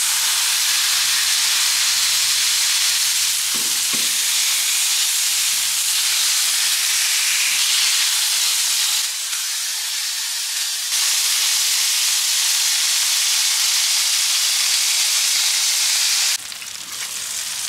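Ground-beef smash-burger patty sizzling loudly on a hot Traeger Flatrock flat-top griddle as a cast-iron burger press holds it flat. The sizzle is a steady hiss that drops in level near the end.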